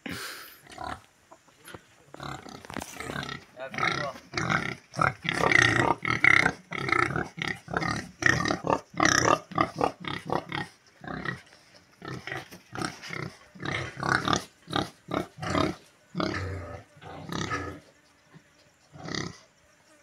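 Several domestic pigs grunting in their pen, short calls one after another, thickest in the middle and thinning out near the end.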